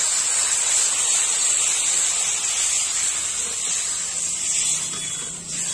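Steady hissing sizzle as water hits hot fried masala in an iron kadai, the start of the curry's gravy.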